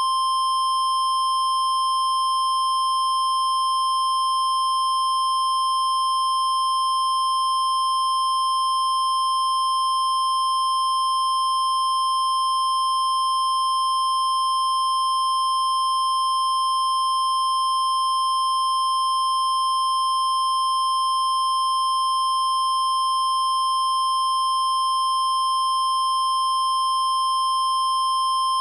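Mock Emergency Alert System alarm tone: one steady, unbroken, high-pitched tone just above 1 kHz, the single-tone 1050 Hz warning alarm used by NOAA Weather Radio, held for the whole stretch ahead of a tornado warning.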